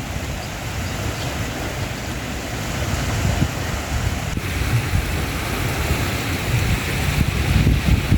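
Wind buffeting the microphone over a steady rumbling background noise, growing a little louder toward the end.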